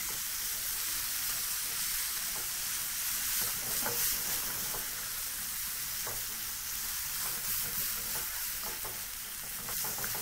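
Sliced red onions and chopped tomatoes sizzling steadily in oil in a very hot nonstick pan, with a spoon stirring and scraping through them now and then.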